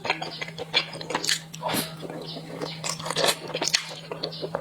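Close-miked eating sounds: wet chewing, smacking and biting of soft bread dipped in sesame paste, many irregular small clicks a second, over a faint steady low hum.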